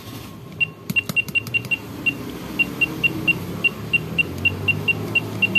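Keys pressed on an electronic keypad, each press giving a short high beep: about twenty beeps at one pitch, in quick irregular runs of several a second.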